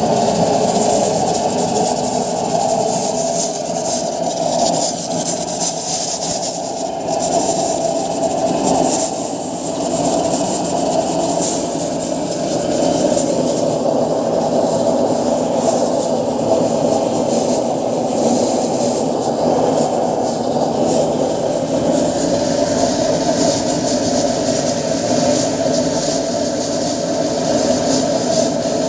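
Homemade oil burner running under a large pot, giving a steady rushing flame noise.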